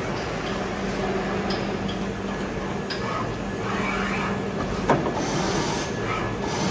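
AXA VHC2-M/B vertical machining centre running with a steady hum, during an automatic tool change. About five seconds in there is a single sharp clack, as a tool holder is taken into the spindle.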